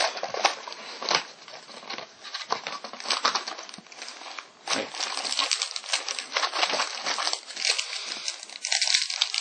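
Crinkling and rustling of a trading-card booster box being opened and its foil booster packs handled, full of small sharp crackles. The crinkling grows louder near the end as a pack is pulled open.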